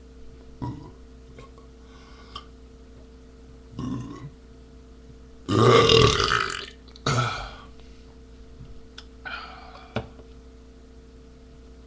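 A man belching loudly: one long belch about five and a half seconds in, followed straight away by a shorter one, with a few fainter sounds before and after.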